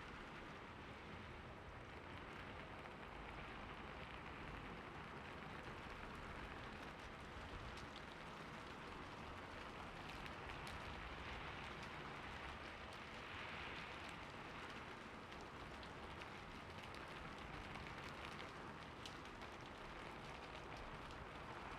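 Steady rain falling, an even hiss sprinkled with many small drop ticks.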